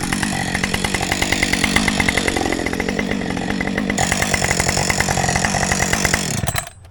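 Two-stroke chainsaw engine running steadily and loud, then winding down and cutting off near the end.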